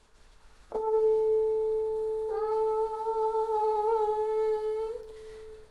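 The tensioned string of a heron sound sculpture, drawn by hand so that it sings one steady tone at about 432 Hz, the A called 'La aureo', with overtones above it. The tone starts suddenly about a second in, grows brighter as more overtones come in a little past two seconds, and fades near the end.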